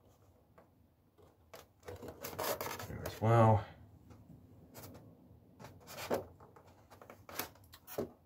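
Short scratchy rubbing strokes on polystyrene foam, thickest about two seconds in, with a brief hummed voice sound just after.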